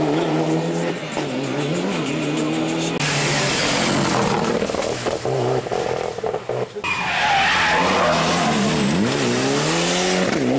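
Rally cars being driven hard past the spectators, among them Mitsubishi Lancer Evos. Their engines rev up and drop again through gear changes and corners. A scatter of sharp cracks comes around the middle.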